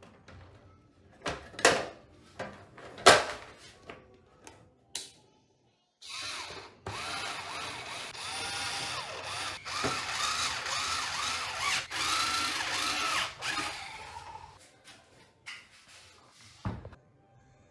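A few sharp knocks, then a small handheld power tool runs for about eight seconds, its pitch wavering up and down, and stops; one more knock near the end.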